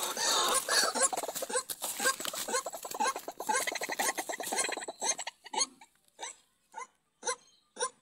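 A captured white-breasted waterhen calling in distress: a fast run of harsh calls mixed with rustling for about five seconds, then short calls repeated about twice a second.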